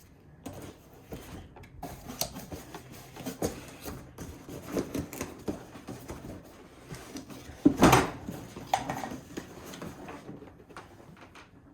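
Packaging box being handled and moved aside: irregular scraping, rustling and light knocks, with one louder thump about eight seconds in.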